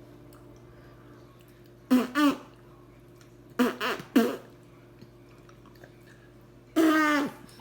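Silly mouth noises made to amuse a baby: short, pitched, burp- or raspberry-like bursts with a falling pitch. They come in groups, two quick ones, then three, then a longer one near the end, with quiet pauses between.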